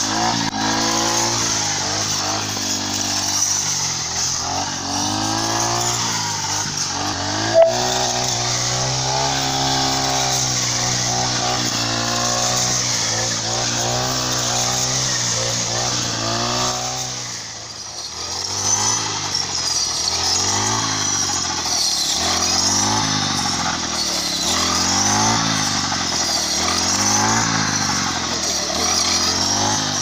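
Petrol brush cutter engine running hard while cutting standing wheat, its pitch swelling and falling over and over as the throttle and load change. There is one sharp click about eight seconds in. In the second half the swell comes regularly, about once a second.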